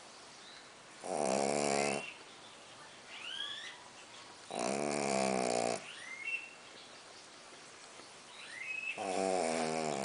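A sleeping pug snoring loudly, three rasping snores each about a second long and some three to four seconds apart. Short rising whistles come in the quieter stretches between the snores.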